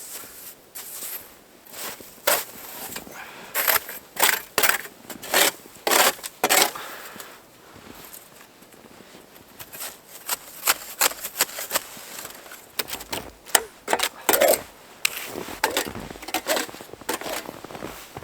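Footsteps crunching through snow, about two steps a second, in two runs with a short pause between them.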